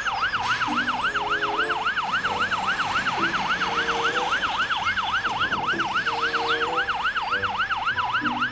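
Toy fire truck's electronic siren sounding continuously, a fast yelping wail that sweeps up and down about four to five times a second, with lower stepped notes beneath it.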